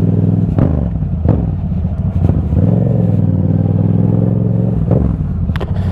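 Yamaha 689 cc parallel-twin motorcycle engine running while riding, its pitch shifting with the throttle, with a few short sharp clicks.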